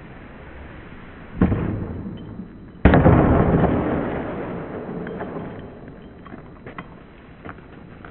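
Snowboard on the top of a wall: a knock about a second and a half in, then a louder hit about three seconds in followed by a long scraping slide of the board along the wall top that fades over several seconds, with a few small clicks near the end.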